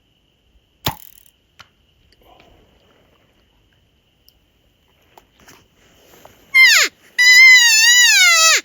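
A sharp click about a second in, then near the end two loud, high-pitched cow elk mews: a short one sliding down, and a longer wavering one that falls off at the end.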